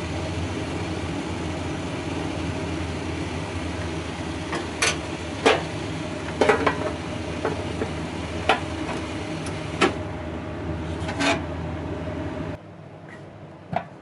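A steady machine hum, like a running kitchen appliance or fan, that cuts off suddenly near the end. Over it come scattered light clicks and knocks of a small knife and peel against a wooden cutting board as a steamed sweet potato is peeled, about seven in all.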